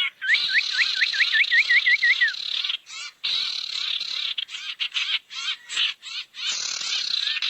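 Bird-lure recording of sirtu bird calls: a quick run of short rising whistled notes, about five a second, over a dense, choppy chattering hiss, with a few more rising notes near the end.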